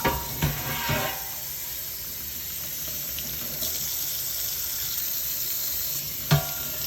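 Running water rinsing soap off the metal air cleaner lid, with a few short knocks near the start and one near the end.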